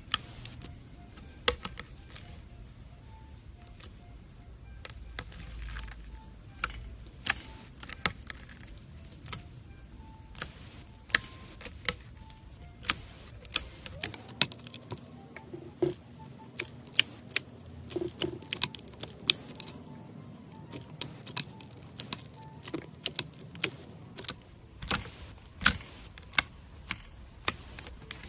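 Slime being squeezed and worked by hand, giving off irregular sharp clicking pops, roughly one or two a second.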